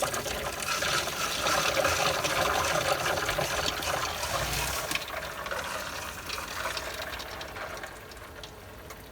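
Water running from a tap, steady through the first half and dying down after about five seconds.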